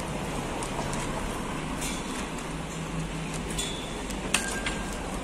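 Steady outdoor city background noise with a low hum, like traffic or engines, and a sharp click about four seconds in.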